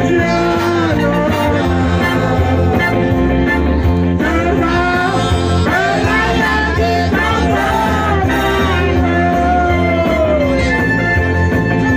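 Loud dance music with a singer over a steady, repeating bass beat.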